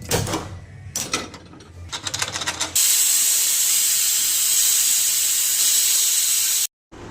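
Cookware clinking and knocking, then about three seconds in a loud, steady cooking hiss that runs for about four seconds and cuts off abruptly.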